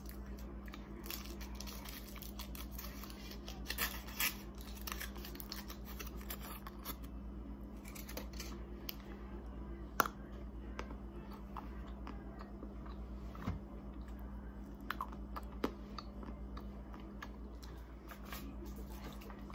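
Close-miked ASMR sounds of handling and eating Valentine's sweets: scattered crackles, taps and crunches, with one sharp click about ten seconds in. A steady low hum lies underneath.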